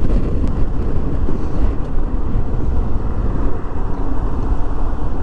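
Steady wind rush and road noise of a motorcycle riding at speed, buffeting the rider's microphone.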